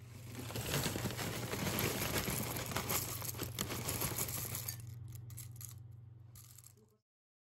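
Cereal flakes poured from a rustling bag into a bowl of yogurt, a dense crackle and crinkle for about four seconds. Then a few soft clicks as blueberries are tipped in from another bowl, over a steady low hum, before the sound cuts off suddenly.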